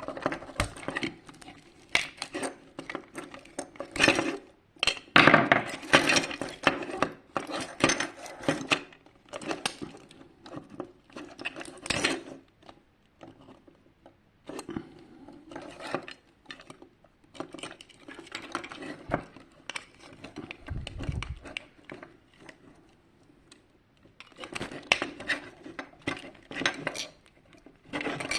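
Irregular clicking and clattering of small hard plastic and metal parts being handled and knocked together while a projection alarm clock is taken apart, with a couple of brief lulls.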